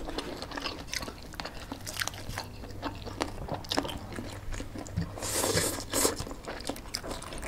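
Close-miked chewing, biting and crunching of spicy chicken feet and fried food, with many small wet clicks, and a short slurp of noodles about five seconds in.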